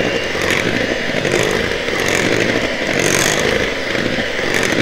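Electric mixer running steadily on low speed, its beaters churning cake batter in a bowl.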